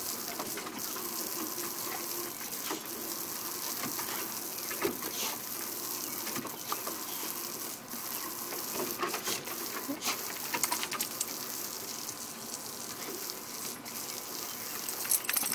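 Garden hose spray hissing steadily, with scattered clicks and taps and a quick clatter of louder clicks near the end.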